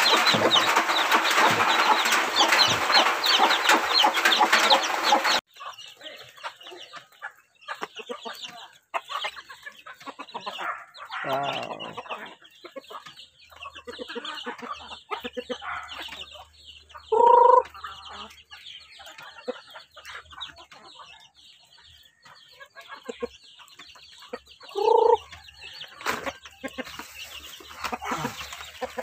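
Newly hatched chicks peeping in a dense, loud chorus beside a brooding hen, cut off abruptly about five seconds in. Then a flock of hens and roosters clucking at a lower level, with two short loud squawks about 17 and 25 seconds in.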